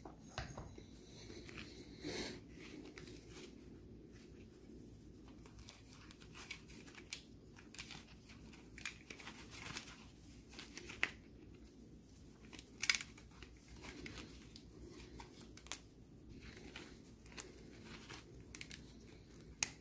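Faint, scattered clicks and crinkly rustles of plastic parts and wires being handled in gloved hands: a Renault Megane II steering-column switch unit and its airbag clock spring being worked on.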